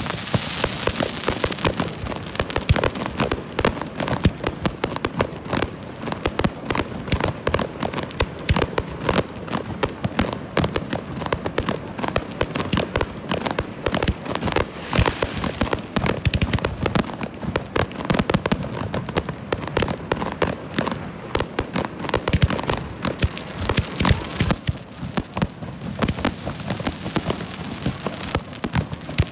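Aerial fireworks display: a dense, unbroken run of bangs and crackling as shells burst overhead.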